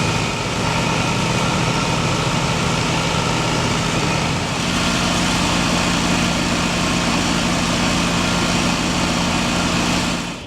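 Farm machinery engine running steadily with an even drone, its note stepping up slightly about four and a half seconds in; the sound drops away suddenly just before the end.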